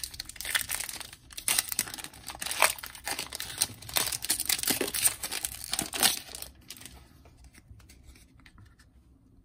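Crinkly wrapper of a Panini Donruss trading-card pack being torn open and crumpled in the hands, with dense crackling for most of the time. Then quieter rustling as the cards are drawn out.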